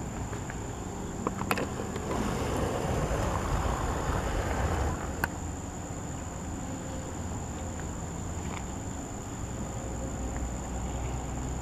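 Insects calling in a steady, unbroken high-pitched whine, with a low rumble underneath.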